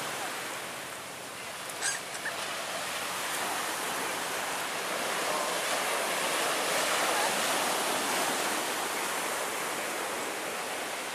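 Small waves breaking and washing up on a sandy beach: a steady rush of surf that swells a little toward the middle, with a brief sharp sound about two seconds in.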